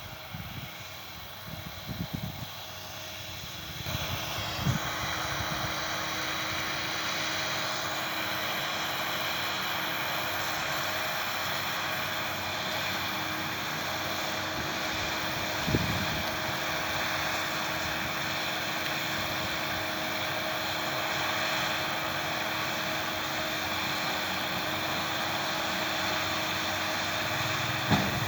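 New Holland T6 tractor working with a round baler while baling hay: a steady engine drone with the baler's hum, growing louder about four seconds in and then holding even. Low gusts of wind hit the microphone near the start.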